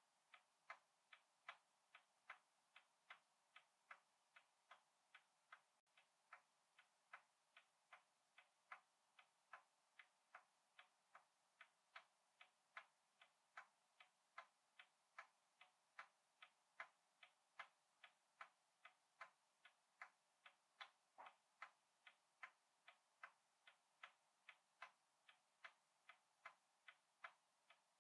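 Small pointed scissors snipping paper in short, even clicks, about three a second.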